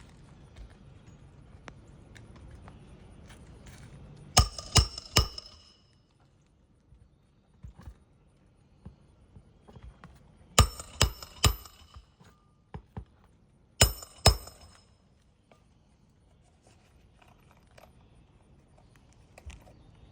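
Hammer driving roofing nails into a new asphalt shingle: sharp ringing strikes in three quick groups, three blows, three blows, then two, with pauses between.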